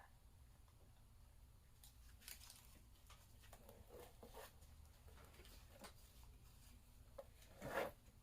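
Faint scattered clicks and short scrapes of engine parts and tools being handled, over a low steady hum, with one louder scrape near the end.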